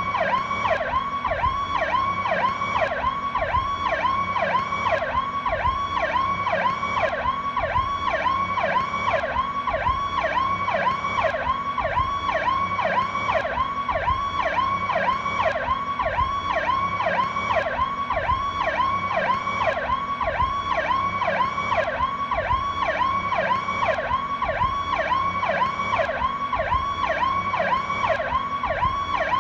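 Federal Signal PowerCall electronic police siren sounding steadily: a fast, unbroken up-and-down pitch sweep repeating about two and a half times a second.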